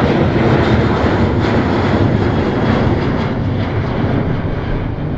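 Airport field recording: the steady noise of aircraft engines, slowly fading toward the end.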